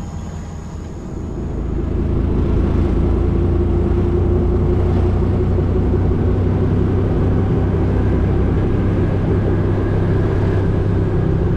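Auto-rickshaw (tuk-tuk) engine running steadily on the road, heard from inside the cabin. It comes in loud about two seconds in, with a low hum.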